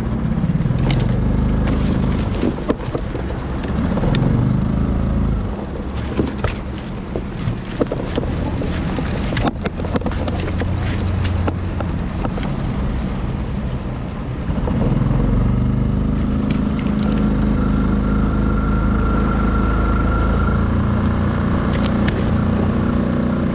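A small boat's motor running steadily, with scattered knocks and clicks of gear being handled. The motor sound grows stronger about two-thirds of the way through.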